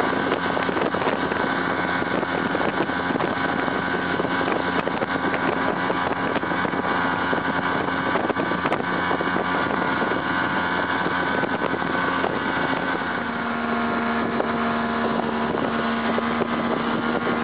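Motorboat engine running steadily at speed while towing a tube, over the constant rush of its wake and wind; the engine's tone shifts slightly lower about thirteen seconds in.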